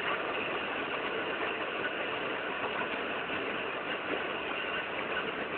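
Steady, even drone of ship engines running offshore, with no distinct knocks or changes.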